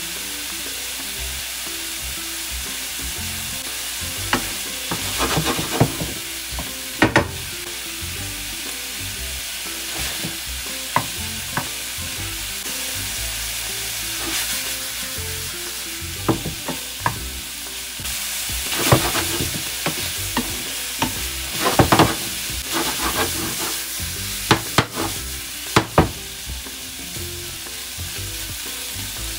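Shrimp sizzling in olive oil in a nonstick frying pan, a steady hiss, with a wooden spoon knocking and scraping against the pan at irregular intervals as they are stirred.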